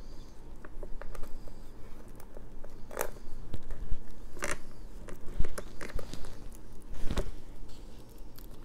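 Handling sounds of a plastic plant pot being lifted out of a bucket of water and turned in the hands: scattered light clicks and scrapes with a few sharper knocks, over a low steady hum.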